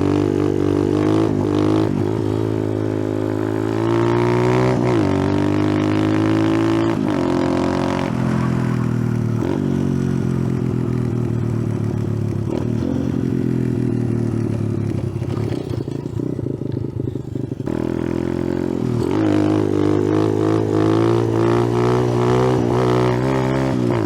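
Icebear Champion 125cc mini bike's single-cylinder four-stroke engine riding along, its pitch climbing and dropping with the throttle and gear changes. The throttle is briefly let off about two-thirds of the way through.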